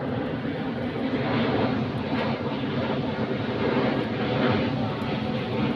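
A steady engine drone that swells and eases slightly a few times.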